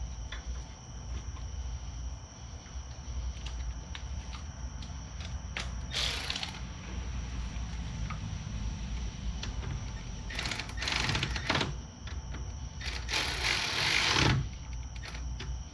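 Hand ratchet wrench clicking as bolts are run in and snugged by hand, in three spells of fast clicking: a short one near the middle, then two longer, louder ones near the end, with a few single clicks in between.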